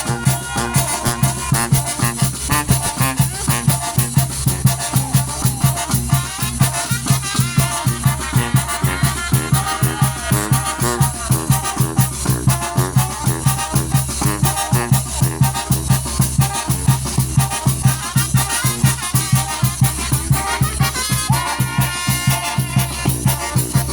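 A Mexican banda, a brass band with drums, playing an upbeat number with a steady, quick beat over a strong bass line.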